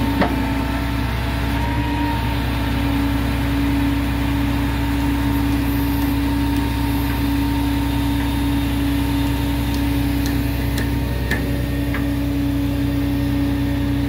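An engine running steadily at idle, a constant hum with a low rumble beneath it. A single sharp knock comes just after the start, and a few faint clicks come later.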